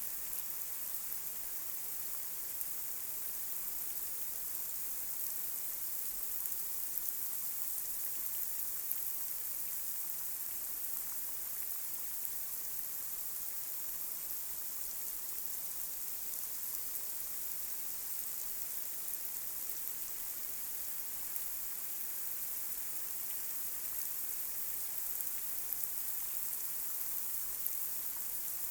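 Light rain falling on a street: a steady high hiss with scattered faint ticks of individual drops.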